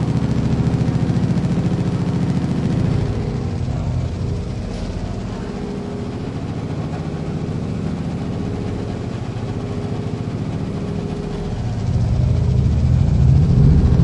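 Treadmill motor and belt running with a steady, low mechanical hum. The hum softens about three seconds in, then swells and rises slightly in pitch near the end.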